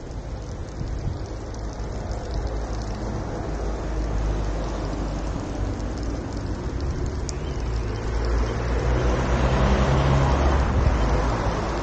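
Road traffic: a car passes on the street, swelling to its loudest about nine to eleven seconds in, over a steady low rumble.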